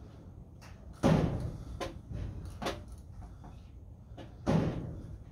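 The old barn clunking in the wind: two heavy door-like bangs, about a second in and near the end, with a few lighter knocks between them.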